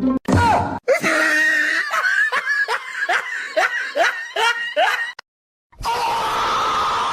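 A person laughing in a quick run of repeated pitched bursts, about three a second. It breaks off and is followed after a short gap by a noisy hiss near the end.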